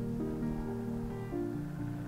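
Instrumental background music: sustained notes that change pitch every half second or so.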